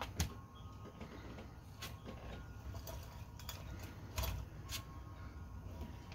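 Belgian Sheepdog nosing through a metal muffin tin covered with crumpled paper balls to get treats. Scattered light clicks and knocks, with two louder knocks, one just after the start and one about four seconds in.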